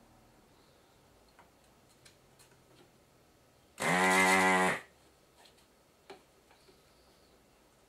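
Vacuum desoldering gun's pump buzzing for about a second as it sucks molten solder off a through-hole pin of the IPM module, with a few faint ticks before and after.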